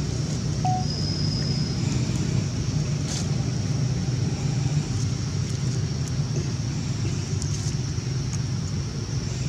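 Steady low outdoor rumble with a thin, steady high-pitched hiss above it and a few faint ticks.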